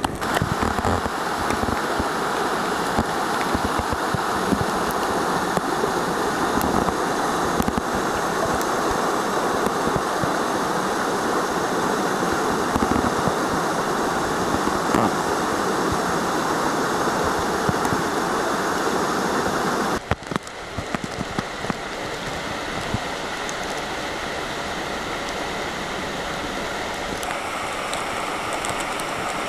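Rushing water of a mountain stream and waterfall: a steady, loud hiss. About two-thirds of the way through it drops suddenly to a quieter level.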